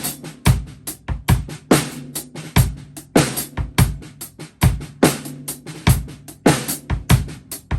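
Drum kit played in a steady beat for a sound check: bass drum, snare and hi-hat hits at an even pace, with lighter strokes between the main hits.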